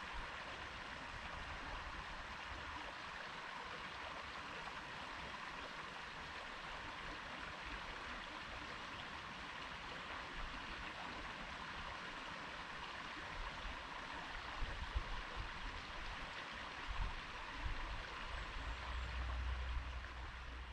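Stream flowing: a steady rushing of water. Over the last several seconds a low rumble and a few soft thumps come in underneath.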